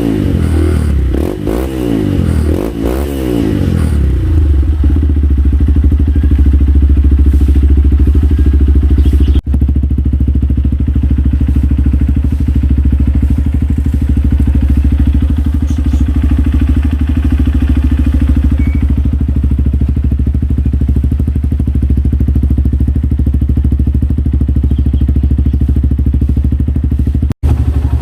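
Honda CRF150L's single-cylinder four-stroke engine breathing through an Akrapovic carbon full-system exhaust. It is blipped in quick revs about once a second for the first four seconds, then settles into a steady idle with a strong low bass note.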